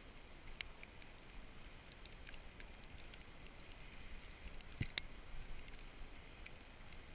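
Faint hiss of a dog sled gliding over snow behind a running husky team, with scattered light clicks and a soft knock about five seconds in.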